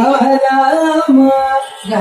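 Women's voices singing a Carnatic swarajathi in raga Todi together, stepping between held notes, with a short break for breath near the end.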